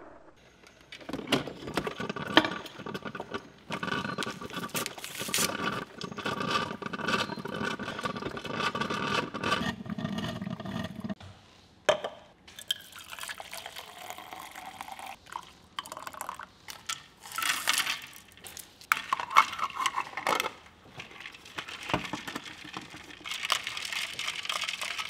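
A drink being poured into a clear plastic cup and tumbler, with plastic clinks and knocks from cups and lids.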